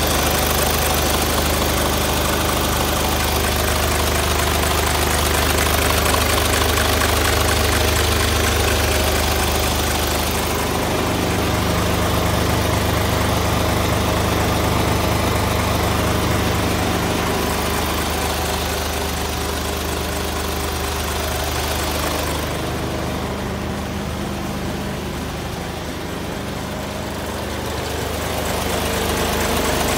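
Isuzu Giga truck's turbocharged diesel engine idling steadily, heard close to the engine bay. It turns a little quieter and duller about three-quarters of the way through, then comes back up near the end.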